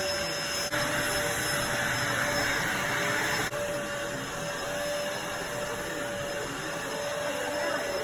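Vacuum cleaner running steadily, a constant motor hum with a whirring rush of air, briefly dipping twice.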